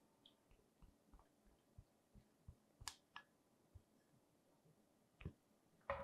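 Near silence: room tone with a few faint clicks, one about halfway through and a couple more shortly before the end.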